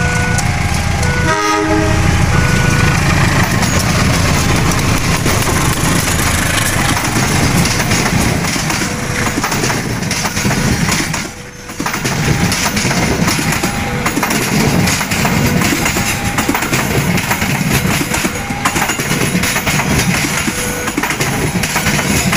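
Diesel-hauled passenger train with stainless-steel coaches passing close by: a steady rumble and rattle of wheels on the rails. A short horn blast comes about a second and a half in. A level-crossing warning alarm sounds in repeated on-off tones throughout.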